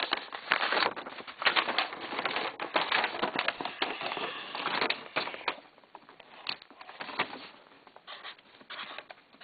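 Scribbling on a sheet of paper to cross out a printed address: a dense run of rapid scratchy strokes for about five and a half seconds, then a few scattered taps and paper rustles.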